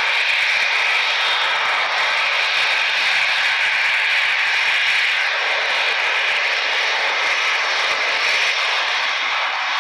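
Airbus A319-111 airliner's twin CFM56 turbofan engines running at low taxi power as the jet rolls past, a steady jet noise strongest in the mid and upper range.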